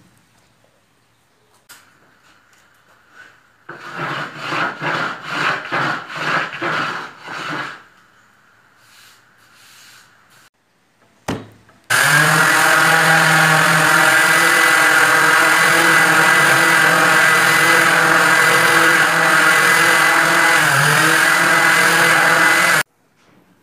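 A corded random orbital sander running steadily on an oak tabletop, its pitch dipping briefly near the end before it cuts off suddenly. Earlier comes a shorter rhythmic sound of about two strokes a second.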